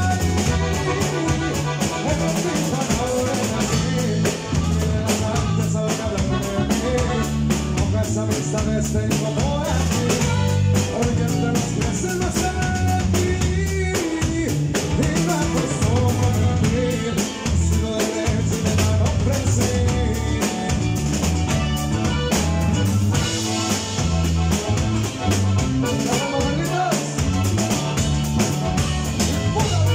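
Live band music, loud and continuous: a drum kit keeping a steady beat under bass and strummed guitar, with a man singing in parts.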